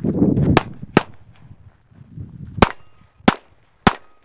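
Footsteps of a runner on gravel stop, then a handgun fires five shots: two half a second apart, then after a pause three more at a steady pace of about two a second. The last three shots are each followed by a brief ringing tone.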